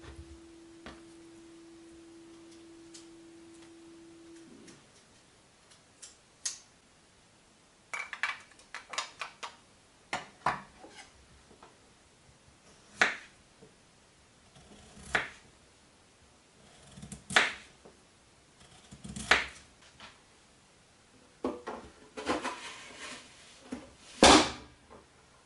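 Knife cutting through raw peeled potatoes on a wooden cutting board: separate crisp cuts, each ending in a knock on the board, about every two seconds. Near the end a louder knock as the plastic vegetable cutter is handled on the board. A faint steady hum runs for the first few seconds and stops.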